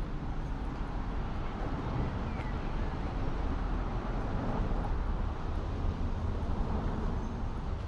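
City street traffic: a steady low rumble of vehicles going by, swelling slightly in the middle.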